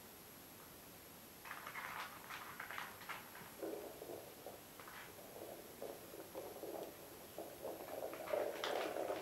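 A small ball rolling and bumping over a hard floor as a cat pushes it along with its nose. There is a low, uneven rumble from about three and a half seconds in, after a short run of light scuffs and clicks, and it is loudest near the end.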